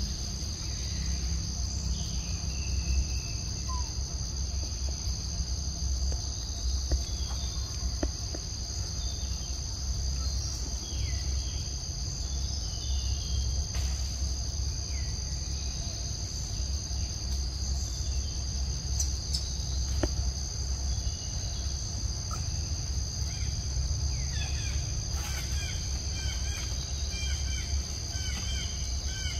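Forest ambience: a steady, high, two-toned insect drone, with a low rumble underneath. Short chirping bird calls come now and then and grow more frequent near the end.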